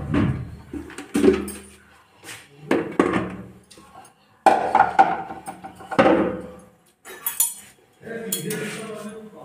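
Steel kitchen dishes and utensils clinking and clattering in a string of separate knocks, some ringing briefly, as a steel plate of dough and a lid are handled.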